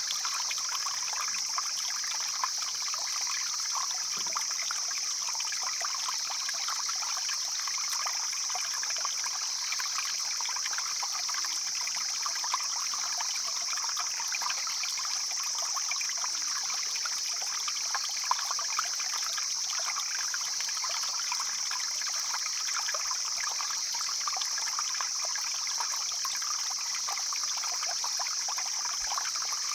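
Stream water flowing and trickling steadily, with a constant high hiss over it.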